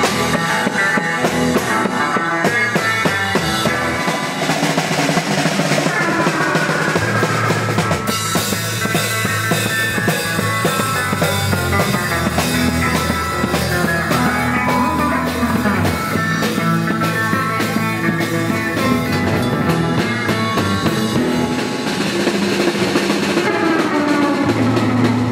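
Rock band playing live: drum kit, electric guitars and bass guitar. The sound gets fuller and brighter about eight seconds in.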